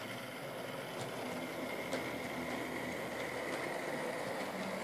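HO-scale model diesel locomotive and freight cars running on the track: a faint, steady whir from the motor and wheels, with a few light clicks.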